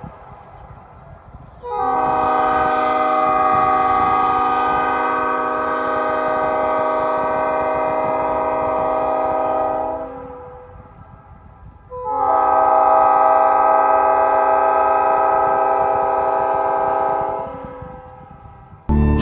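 Nathan Airchime P5 five-chime train horn, a new-cast horn with bells 1 through 5, sounding two long steady chord blasts of about eight and five seconds with a short gap between them.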